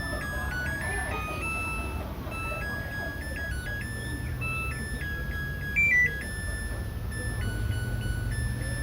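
Washing machine running with a steady low hum, under a simple tune of electronic beep-like tones that step from note to note, with one louder note about six seconds in.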